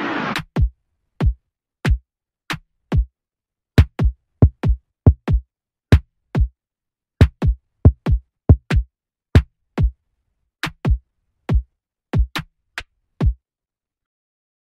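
Electronic music: a synth swell cuts off about half a second in, leaving a drum-machine bass drum playing alone. Each kick is a sharp click that drops into a deep boom. Nearly thirty of them come in an uneven, stuttering rhythm and stop about 13 seconds in.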